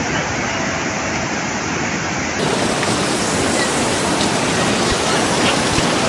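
Floodwater rushing in a muddy torrent, a steady loud rushing noise. About two and a half seconds in it cuts to another steady rushing noise.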